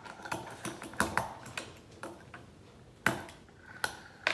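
Tech Deck fingerboard clicking and tapping on a hard surface: a few separate sharp plastic clicks, about a second in, twice near 3 to 4 s, and once at the end, the one just after 3 s the loudest.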